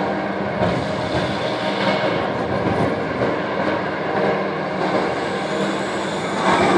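Light-show soundtrack over outdoor loudspeakers: a steady, dense sound-effect texture, with clearer sustained musical tones coming in near the end.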